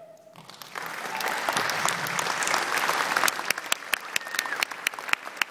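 Audience applauding, starting about a second in, building to full applause and then thinning out to scattered individual claps near the end.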